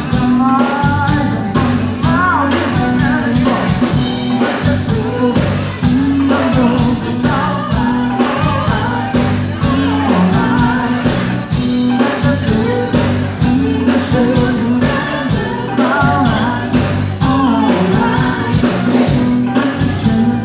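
Live band playing loudly: electric guitar and drum kit, with a woman singing over them.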